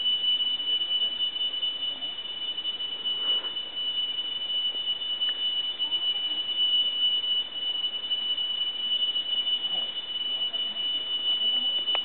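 Tree crickets singing: one continuous, high-pitched, bell-like tone held at the same pitch.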